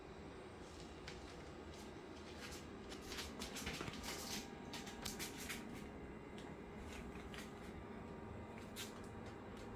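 Faint rustling and scattered clicks over a steady low hum. The clicks come in a cluster a few seconds in, with one more near the end.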